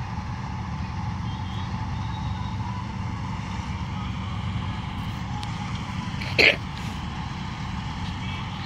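Combine harvester running steadily in the wheat field, a constant low engine drone. About six seconds in, a brief loud cry cuts across it once.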